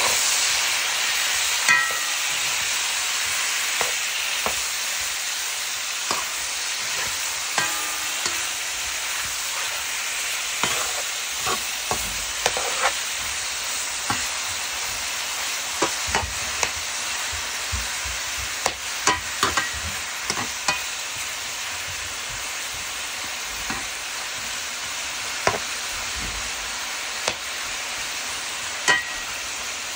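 Chunks of meat sizzling as they fry in hot oil in a large metal pot, with scattered clinks and scrapes of a metal spoon stirring them against the pot.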